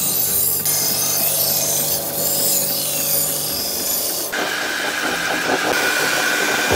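Belt grinder grinding a steel axe head: an even, hissing rasp of the abrasive belt against the metal over a low motor hum. A little past halfway it switches to a rougher grind with a steady whine and a fast pulsing rasp.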